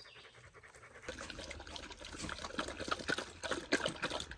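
Water splashing and trickling, with many small irregular clicks, starting about a second in.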